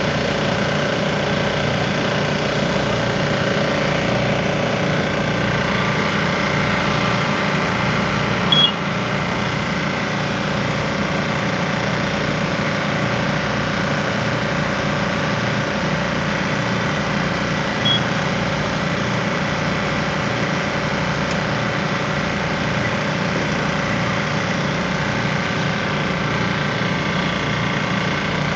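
Fire truck's engine running steadily at a constant speed, with two brief high chirps about nine and eighteen seconds in.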